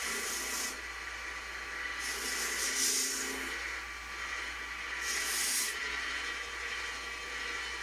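Three short hissing strokes a couple of seconds apart, over a faint steady hum, as the old gun's screws are cleaned.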